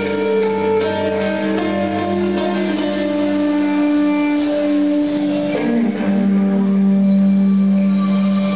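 Rock band playing live: slow, held guitar notes ringing and changing about once a second, with no drum hits.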